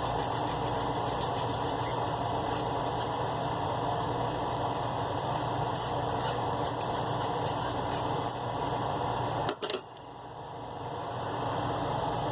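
Mini lathe's DC motor running steadily while a hand file scrapes against the spinning aluminium workpiece in irregular strokes, deburring its edges. About nine and a half seconds in, a click and the running sound drops off suddenly, then slowly builds back up.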